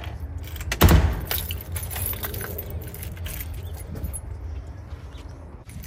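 Keys jangling with small clicks of handling, and a heavy thump about a second in, over a steady low rumble.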